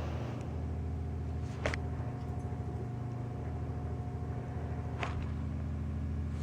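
Steady low mechanical hum, like a running motor, with a faint held tone between two sharp clicks about a second and a half and five seconds in.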